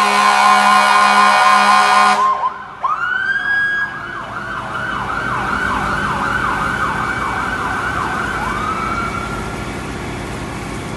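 Fire engine sirens. A loud, fast-warbling siren cuts off about two seconds in. Another siren then winds up and yelps up and down about twice a second, ends with one more rising wail that fades, and a steady hiss runs underneath.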